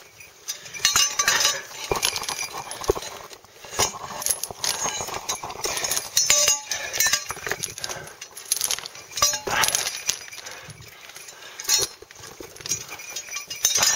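A climber scrambling up steep rock: boots and hands scuffing and knocking on loose stones in an irregular series, with hard breathing close to the microphone.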